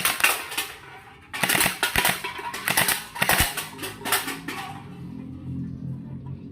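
Toy water gel blaster firing in three rapid clattering bursts, followed by a low steady hum.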